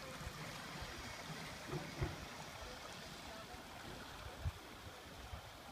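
Faint steady rush of water from a small boat's wake, with low wind bumps on the microphone.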